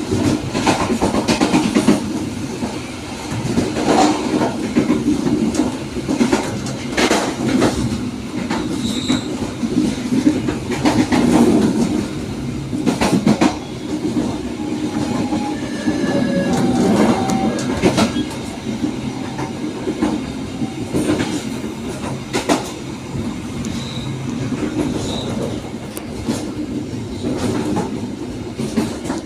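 Passenger train carriage running along the track: a steady rumble of wheels on rail, with irregular sharp clicks over rail joints and a few brief high squeals from the wheels.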